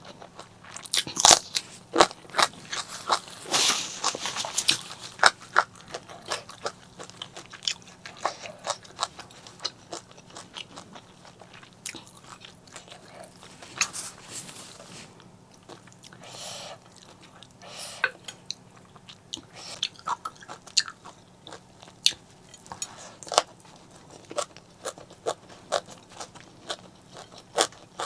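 Close-miked eating: biting into and chewing crunchy fried fish, a long irregular run of sharp crunches, thickest a few seconds in and again around the middle.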